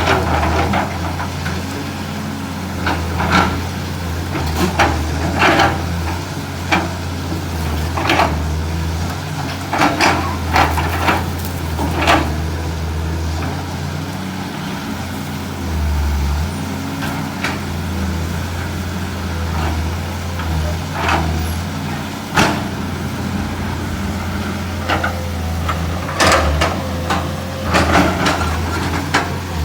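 Excavator diesel engine running steadily under load, with many sharp, irregular cracks and knocks of wood and roots breaking as tree stumps are pried out of the ground.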